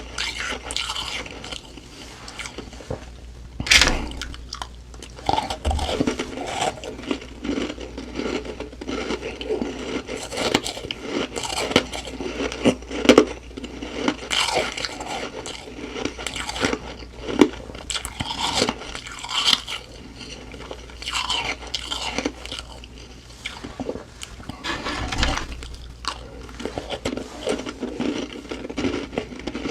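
A person chewing mouthfuls of humidifier frost on close microphone: a dense, irregular run of crunches with a sharper, louder crunch about four seconds in.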